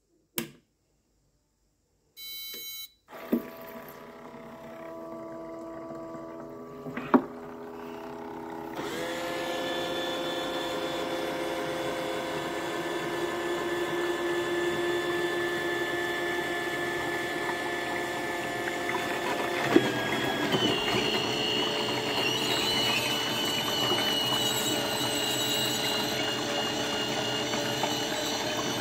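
A button click and a short electronic beep, then the Audio Desk Systeme Gläss ultrasonic vinyl record cleaner starts up: a steady mechanical hum with several whining tones as its motors turn the record between the cleaning rollers and its pump moves the cleaning fluid. The sound gets louder about nine seconds in and its tones shift about twenty seconds in, with a knock there.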